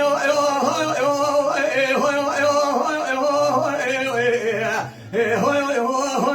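A man singing Kurdish dengbêj song in a long, wavering, ornamented vocal line, pausing briefly for breath about five seconds in.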